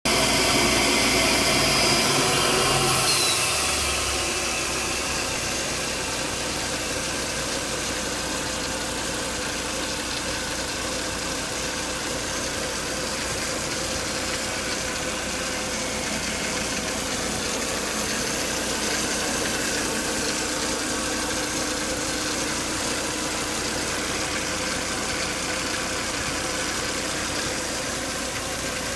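Volvo S80 2.5T's turbocharged five-cylinder engine running with a whine, the strange noise the owner says comes after 10 to 20 minutes of running, "like something is broken inside", along with abnormally high intake vacuum. It is louder for the first few seconds, with a high whine that falls in pitch about three seconds in, then settles to a steady running sound.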